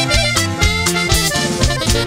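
Latin dance music with accordion, bass and drums keeping a steady beat.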